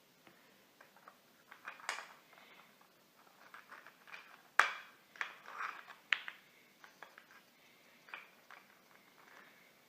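Irregular light clicks and taps of hard objects being handled, with sharper knocks about two seconds in, just under five seconds in and about six seconds in.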